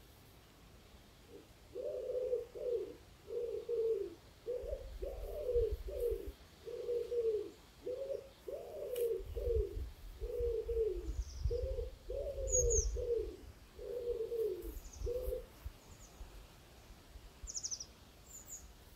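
A pigeon cooing: a long series of low, repeated coos that stops a few seconds before the end, with a few brief high chirps from small birds near the middle and the end.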